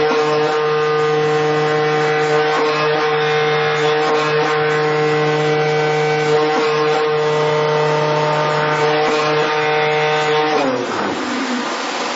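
CNC flatbed cutting machine running, a steady pitched machine hum with many overtones. About ten and a half seconds in, it drops in pitch and winds down.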